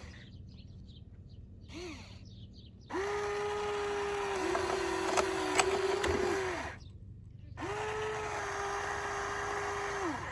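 Small electric motor of a radio-controlled construction model whining in two runs of a few seconds each, its pitch rising as it starts and dropping as it stops, with a few sharp clicks during the first run.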